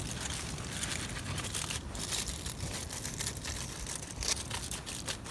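Aluminium foil crinkling and crumpling in irregular bursts as hands fold and crimp it shut into a cooking parcel.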